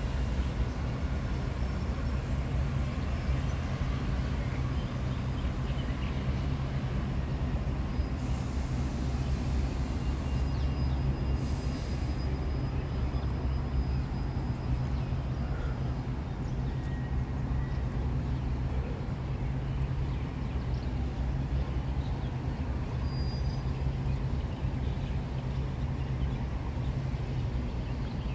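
Steady low rumble of street traffic, unchanging throughout.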